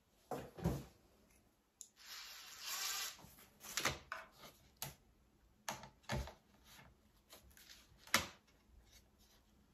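Cordless drill-driver and screws being worked into a wooden duckboard gate: quiet scattered knocks and clicks of tool and wood, with a short rasping run about two seconds in.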